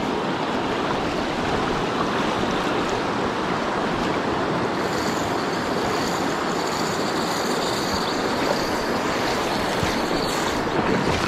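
Rushing river rapids: the steady roar of fast white water over rocks.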